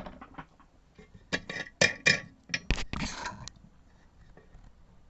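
Small tools and objects being picked up and set down on a cluttered work surface: a quick run of clinks and knocks over about two seconds, with a short scrape near the end of them.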